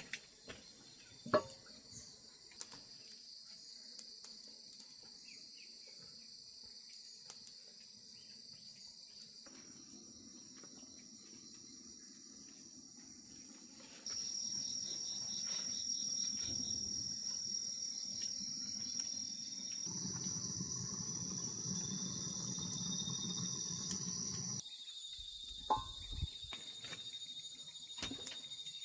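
A chorus of crickets and other night insects chirping steadily at a high pitch. The chorus changes abruptly several times, and a couple of faint knocks sound near the start and near the end.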